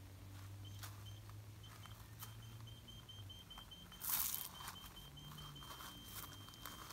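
Aftermarket rear parking sensor buzzer beeping, the beeps coming faster and faster as someone closes in on the rear bumper, until they run together into one continuous tone near the end: the obstacle is at the closest range. Footsteps crunch on gravel, loudest about four seconds in.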